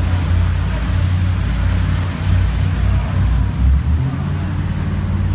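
Jet boat's engine running, heard from inside the cabin as a steady low rumble that swells and dips, with a hiss of rushing water over it.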